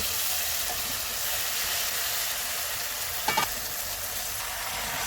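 Curry masala of onion, tomato and spices sizzling steadily in hot oil in a pan, with one brief sharp utensil-like sound about three seconds in.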